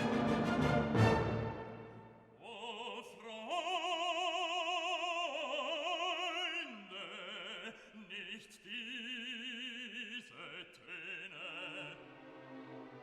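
Background classical music: an orchestral passage dies away in the first two seconds, then a voice sings long held notes with wide vibrato in operatic style.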